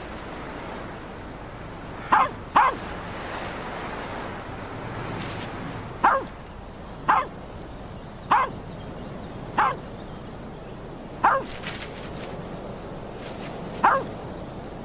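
A dog barking repeatedly: eight short, sharp barks at uneven intervals, two in quick succession about two seconds in, over a steady rush of wind.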